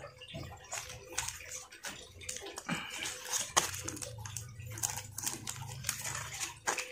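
Crinkling and rustling of a foil-and-plastic seed sachet being handled and turned over, with scattered small crackles and clicks.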